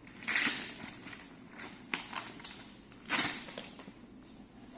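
Handling noises of a plastic battery cover being taken off: two short scrapes with a few sharp clicks between them.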